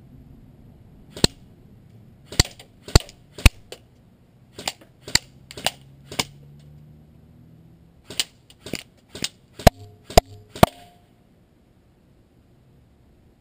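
Airsoft BBs striking the GoPro in its skeleton housing: about fourteen sharp, loud cracks in irregular groups of two to four, the last few with a brief ringing tone.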